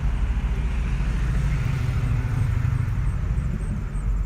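Steady low rumble of a car's engine and tyres while driving slowly, heard from inside the car.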